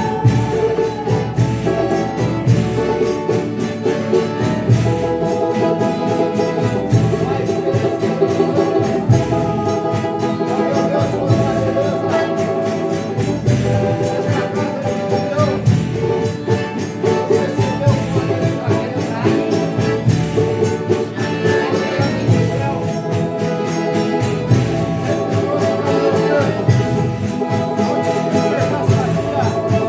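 Folia de Reis music played live: sustained instrumental chords over a steady rhythm of jingling tambourine.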